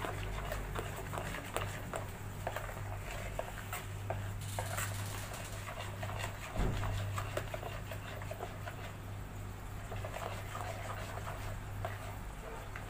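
Spoon stirring sugar into custard in a pot, with scattered light clicks and scrapes of the spoon against the pot over a steady low hum, and one duller knock about six and a half seconds in.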